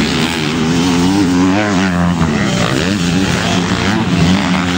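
Motocross dirt bike engines revving, their pitch rising and falling again and again as the throttle opens and closes.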